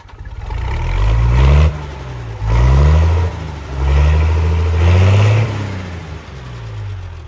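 A motor vehicle engine revving: its note climbs, drops and climbs again about four times, then falls away toward the end.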